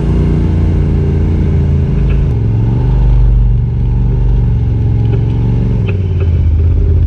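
Off-road vehicle engine running steadily, its pitch shifting to a new level twice.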